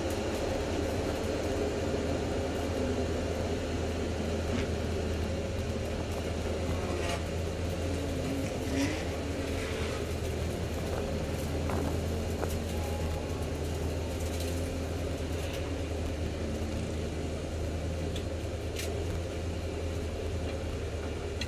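Ford Mustang race car's engine running at low, steady revs, heard from inside the cabin, with road and tyre noise and a few faint rattles and clicks.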